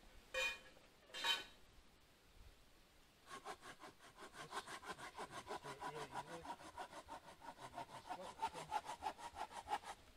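A hand saw cutting through a log in quick, even back-and-forth strokes, about four or five a second, starting about three seconds in. Before it, two short sharp noises.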